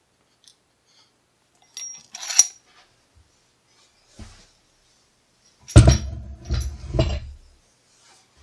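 Small metal lock parts and tools clinking and clattering on a hard surface while a pin-tumbler lock is taken apart: a few light metallic clinks about two seconds in, then a louder cluster of knocks and clatter about six to seven seconds in.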